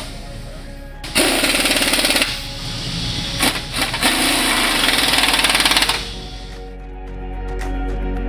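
Pneumatic impact wrench rattling in two bursts, the first about a second long and the second about two seconds, with a few short metallic clicks between them. Background music comes in near the end.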